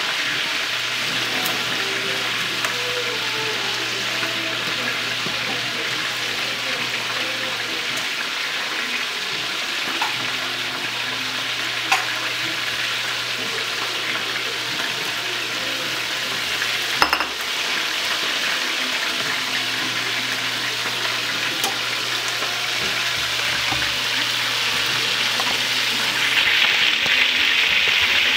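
Chicken pieces frying in oil in a pan, a steady sizzle that grows louder near the end, with a few light clicks along the way.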